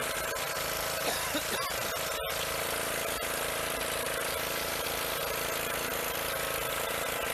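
An engine running steadily together with a continuous hiss, with a brief break about two seconds in.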